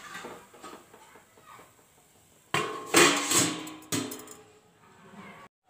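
A steel lid is set over a kadhai with a metallic clatter about two and a half seconds in, ringing briefly as it dies away, then a second knock of metal on metal about four seconds in.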